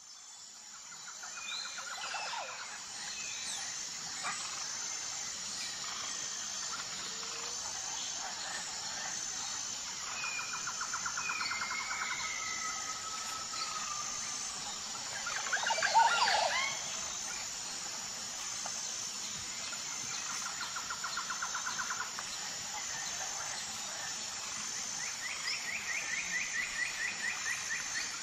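Outdoor ambience of insects and birds: a steady high-pitched insect chirring that pulses about once a second, with birds calling in short trills and glides now and then and one louder call about 16 seconds in.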